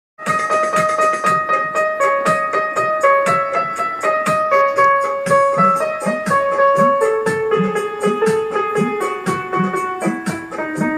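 Music with a piano-like keyboard sound starting suddenly out of silence: a melody that steps gradually lower over a steady low beat.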